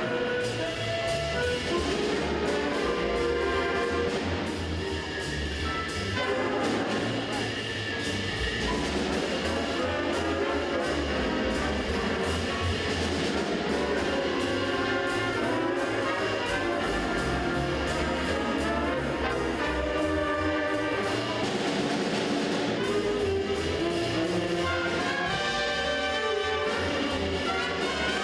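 A school jazz band playing a swing number with trumpets and trombones over bass and drums, the music running on without a break.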